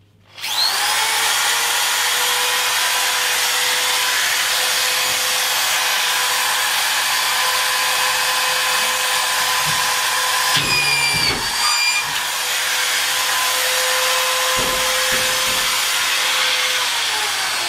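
Metabo SE 4000 drywall screw gun with a belt-fed screw magazine spinning up and running at a steady high whine. Twice, about ten and about fourteen seconds in, the pitch dips with a low rumble as it drives a screw into the OSB panel. The whine winds down near the end.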